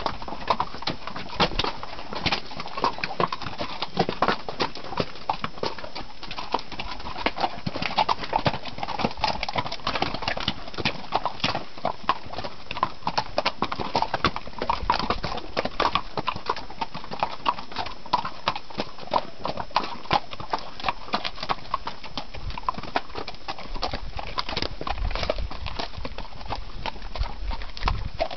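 Mules' hooves clopping on a rocky dirt trail as several mules walk in a line: an irregular, continuous run of sharp clicks and knocks.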